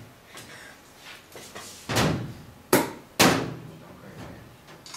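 Air-powered pneumatic cutter snapping shut on a wooden stick: three loud, sharp snaps in a little over a second, starting about two seconds in, with a few fainter clicks around them.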